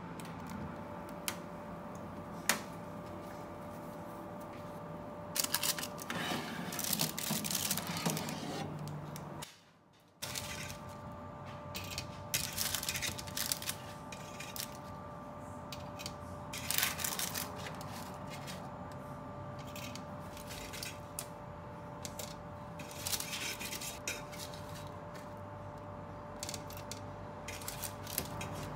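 Small handling sounds, with scattered clicks, light clatter and rustling, over a steady electrical hum. The sound drops out briefly about a third of the way in.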